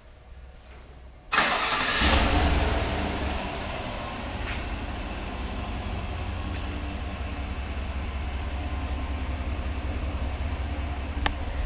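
Pickup truck's 5.3-litre V8 starting: a short crank about a second in, catching with a brief rise in revs, then settling into a steady idle.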